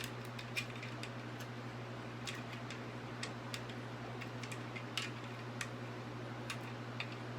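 Light, scattered plastic clicks and taps, about one every second or so at irregular spacing, from handling and screwing together a ring light's tripod and phone holder, over a steady low hum.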